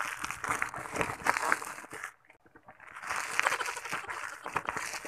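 Crumpled paper being scrunched right against the microphone, a dense crinkling crackle full of small snaps. It stops for most of a second about two seconds in, then starts again.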